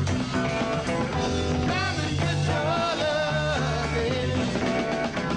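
Background music with singing over a steady bass line.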